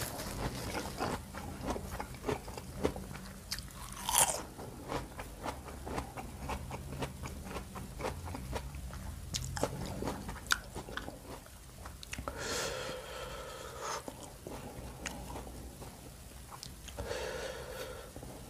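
Close-miked crunchy chewing of crisp raw water apple (jambu air), with a dense run of crackles and mouth clicks and one louder crunch about four seconds in. The chewing thins out after about ten seconds, and two short hummed vocal sounds follow near the end.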